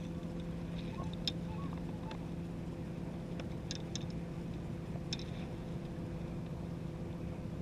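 A steady motor drone holding one low pitch over an even low rumble, with a few faint clicks about a second in, near four seconds and a little after five.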